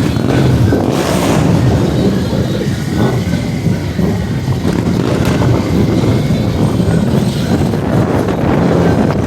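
Wind buffeting the microphone over the rumble of passing vehicle traffic.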